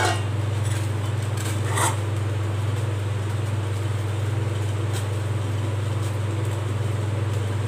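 A steady low hum throughout, with a few faint scrapes of a steel spoon stirring thick, cooked rice-flour dough in a nonstick pan, one a little under two seconds in.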